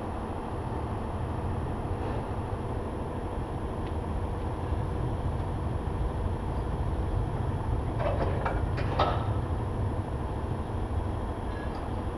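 DAF CF lorry's diesel engine running with a steady low rumble, with a couple of brief rattles about eight and nine seconds in.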